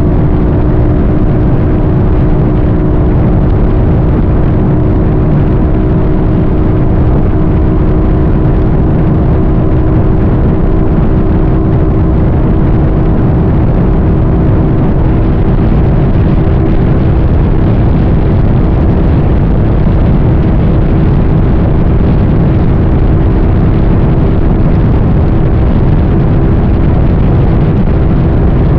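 A vehicle travelling at a steady speed: an even hum that holds one pitch, over a dense low rumble of road and wind.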